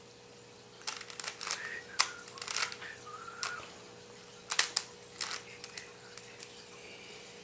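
Plastic 3x3 Rubik's cube being twisted by hand, its layers clicking and clattering in quick runs of turns: one flurry about a second in, another about four and a half seconds in.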